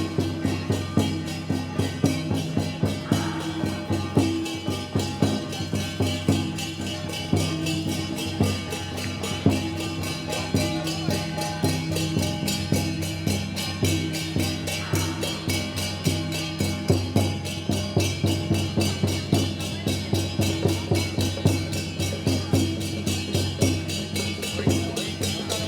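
Traditional temple procession music: percussion, wood block and drum, keeps a steady fast beat under sustained low held tones.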